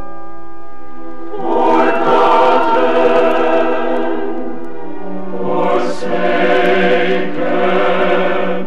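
Choir singing a cantata chorus over sustained orchestral chords. It comes in two loud swells, one about a second and a half in and another about five and a half seconds in.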